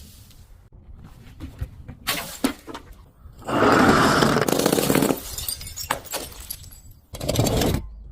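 A glass bottle breaking: a few sharp cracks, then about three and a half seconds in a loud burst of shattering and crunching glass lasting under two seconds, and a shorter crunch near the end.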